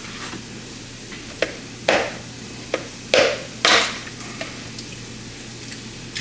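Eggs being knocked and cracked against the rim of a small bowl: about five sharp knocks, the two loudest a little past the middle.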